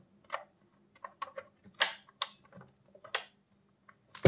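Plastic lid and handle latch of an electric sandwich maker being pressed shut and clicked into place: several sharp clicks and knocks, the loudest about two seconds in and near the end.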